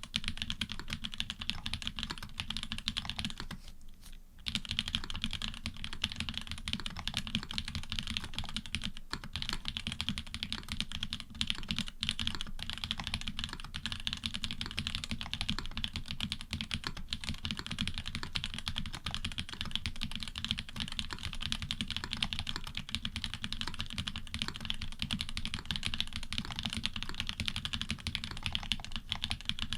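Steady, rapid typing on an Orion v2.5 custom mechanical keyboard whose switches pair Cherry bottom housings with Cream tops and stems, dampened by switch foam and plate foam, on an FR4 plate with GMK Oblivion keycaps. The keystrokes pause briefly about four seconds in.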